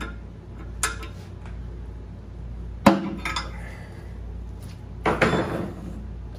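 Metal hand tools clinking and clanking against the steel of a homemade cylinder-sleeve puller: a light clink about a second in, one sharp metallic clank about three seconds in, and a short rattling clatter about five seconds in.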